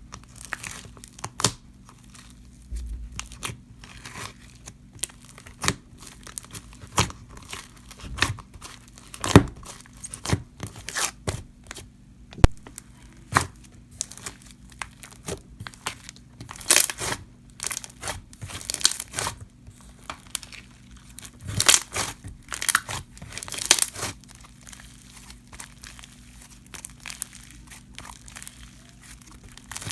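Slime being squished and stretched by hand, giving irregular sticky crackling, crinkling and popping, with a few louder pops along the way.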